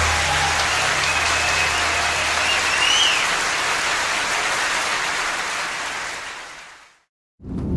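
Spectators applauding and cheering: a steady wash of clapping and crowd noise with a few high shouts or whistles in it. It fades away near the end.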